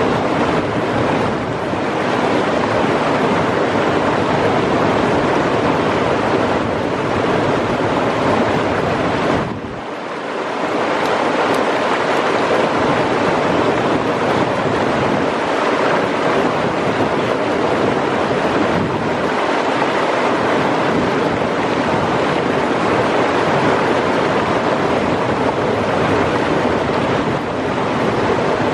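Turbulent mountain river rapids rushing steadily: a loud, even whitewater noise that dips briefly about ten seconds in.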